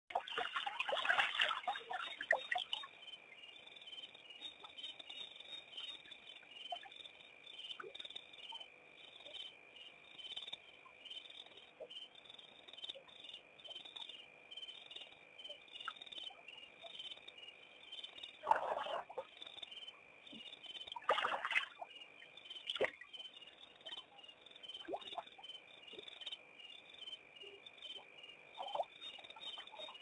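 Night chorus of insects at a waterhole, a steady high trill with a fast pulsing rhythm. A few louder, lower calls stand out over it in the first two seconds and again about two-thirds of the way through.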